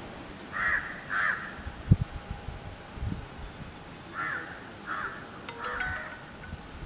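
A crow cawing: two short caws about a second in, then three more between about four and six seconds. A brief low thump sounds about two seconds in.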